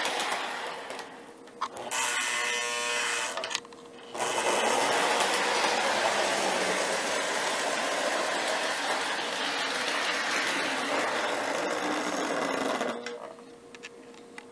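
Lionel 6-8463 Chessie System GP-20 O-gauge locomotive running on three-rail track: a steady mechanical whir of its electric motor and gears with wheel rattle. It dips briefly about a second in and again near four seconds, then falls away about 13 seconds in.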